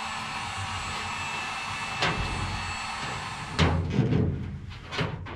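Handling noise from plastic static-line tubing being worked through the bulkheads of an aluminium fuselage: a sharp tap about two seconds in, then a run of knocks and rustles from about three and a half seconds in, over a steady background hiss.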